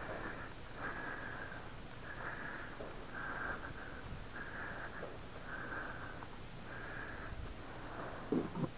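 A person's breathing close to the microphone, soft noisy breaths about one a second at an even pace, with a brief low grunt near the end.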